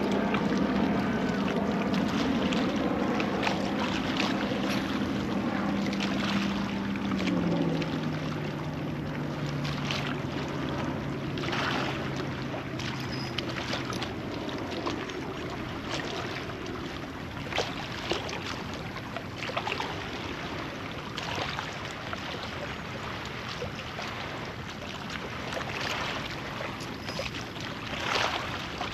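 A boat motor hums steadily on the water. Its pitch drops a step about seven seconds in, and it dies away about halfway through. Water and wind noise continue underneath, with scattered light knocks.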